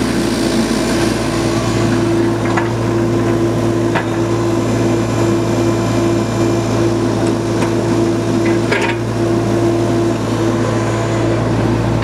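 Mini excavator's Kubota diesel engine running steadily with a strong even hum while the hydraulic boom, arm and bucket are worked, with a few short knocks along the way.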